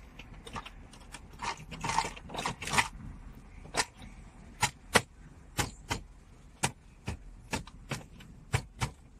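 Plastic centre-console trim panel being handled and pressed back into place: a short spell of plastic scraping and rattling, then a series of about a dozen sharp plastic clicks, roughly one every half second, as the panel's clips are pushed home.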